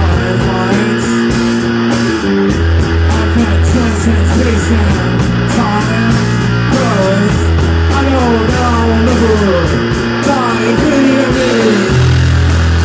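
Rock band playing live: guitar, bass and drums, with a run of notes sliding downward again and again through the middle.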